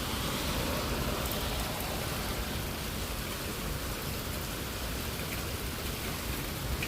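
Steady storm rain falling, an even hiss with no breaks.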